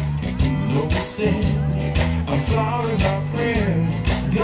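Music: a song with a singer over a steady beat.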